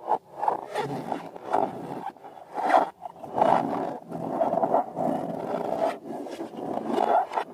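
Rubber balloons and slime being squeezed and rubbed by hand, giving rough squeaking and squelching strokes of about a second each.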